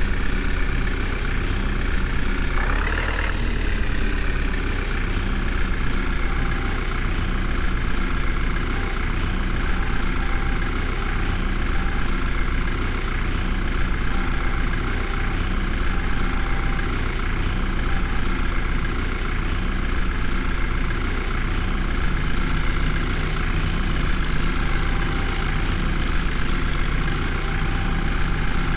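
Heavy diesel engine running steadily, with one brief rev up and back down about three seconds in.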